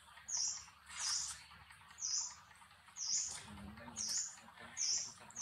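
A bird's short, high chirp repeated steadily about once a second.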